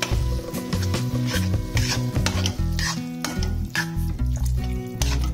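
Spatula stirring and scraping grated cauliflower and peas in a kadhai while the masala sizzles, in repeated strokes about two a second.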